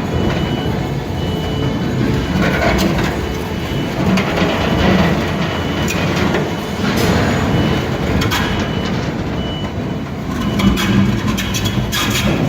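Industrial machinery running with a steady low hum and noise, and a short high warning beep that repeats about once a second, mostly in the first few seconds and again later on.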